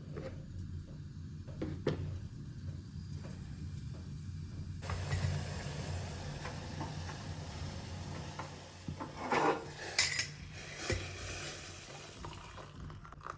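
Kitchen utensils and a pan clinking and scraping, with a steady hiss setting in about five seconds in and a few sharper clinks near the end.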